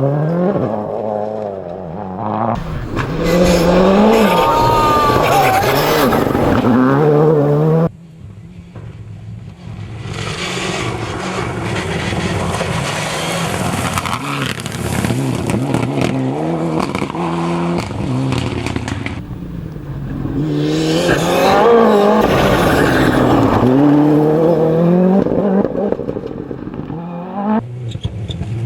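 Rally cars at full speed on a stage, engines revving hard and dropping back between gear changes, with tyre noise. The sound breaks off abruptly about eight seconds in. A rushing, hiss-like stretch follows before engines rev again later on.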